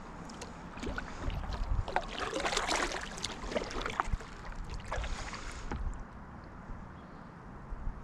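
Kayak paddle strokes splashing and dripping water in irregular bursts, fading to a quieter wash of water and wind after about six seconds.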